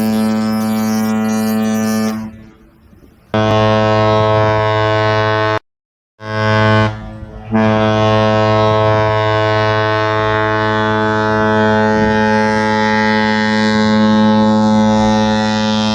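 Deep ship's horn sounding at one steady pitch. There are two blasts of about two seconds each, then a short one, then a long blast held through most of the second half. Each blast cuts off abruptly.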